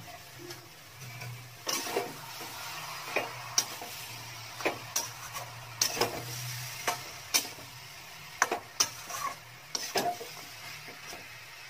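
A metal spatula scrapes and clinks against a metal kadai as a thick mixture of banana blossom, potato and chickpeas is stirred and fried, giving irregular strokes about once a second over a light sizzle.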